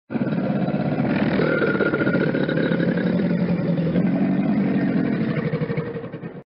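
Crocodile vocalizing: a low, rapidly pulsing rumble that starts abruptly and cuts off after about six seconds.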